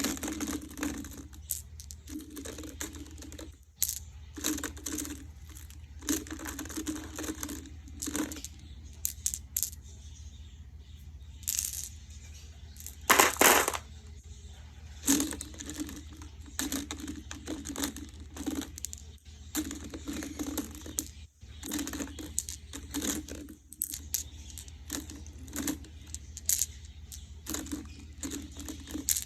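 Marbles clacking against one another and rolling: frequent sharp clicks with stretches of a low rolling rumble, and a louder burst of clacks about 13 seconds in.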